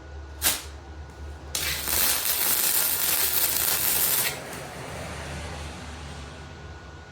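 Wire-feed (MIG) welder laying a short weld bead: about three seconds of steady, loud crackling sizzle, preceded by a brief sharp crack about half a second in.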